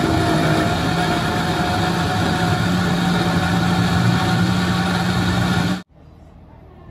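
Countertop blender motor running steadily, grinding soaked corn kernels and water into a purée; it cuts off suddenly near the end.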